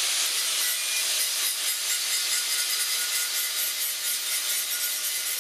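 Handheld electric grinder with an abrasive disc, spun up and grinding steadily against a steel exhaust downpipe. It is cleaning the metal around a freshly cut hole back to bare steel, ready for welding on a lambda boss.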